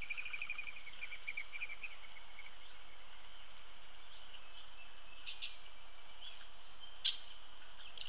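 A bird sings a rapid trill of evenly repeated notes for about two seconds, fading as it goes, over a steady high background tone, with a few short calls later on. A single sharp click about seven seconds in is the loudest sound.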